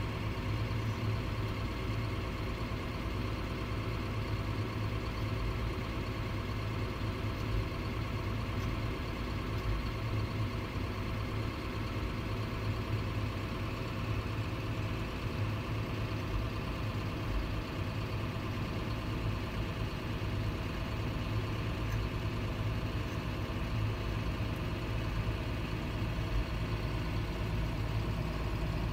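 Autopilot motor drive running steadily at very low speed, about 0.35 km/h, below its catalogue minimum of 0.5 km/h: a constant low hum with a faint, even pulsing.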